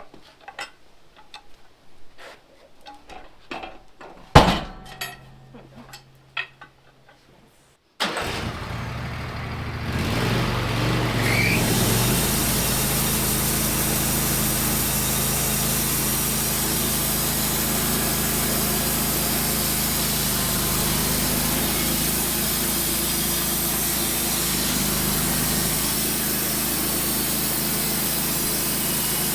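A few knocks and one loud thud. About eight seconds in a portable bandsaw mill's engine starts up abruptly, rises over a few seconds and then runs steadily.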